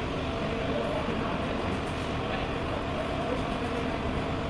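Steady, even vehicle rumble with no distinct knocks or changes.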